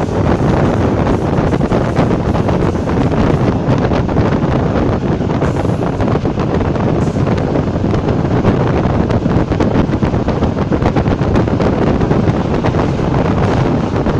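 ČD class 460 electric multiple unit running at speed, heard from on board: a steady, loud rushing and rumbling of the moving train with wind noise throughout.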